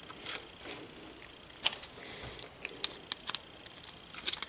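Small parts being handled: a wire and a metal terminal being fitted together, giving a few sharp, light clicks spread through the second half, with faint rustling between them.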